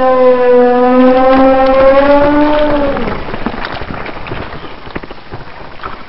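Monster roar sound effect: a long, pitched bellow held for about three seconds, which dips in pitch and breaks off into a rough, rumbling tail that fades away.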